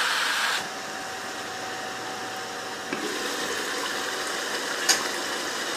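A wooden spoon stirs chicken and sliced onions sizzling in a pan, cut off after about half a second by a steady hiss from the chicken stew simmering on a gas stove. A single light knock comes near the end.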